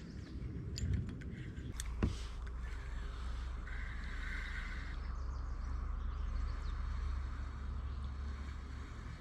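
Low, steady wind rumble on the microphone, with a few light clicks or knocks about one to two seconds in.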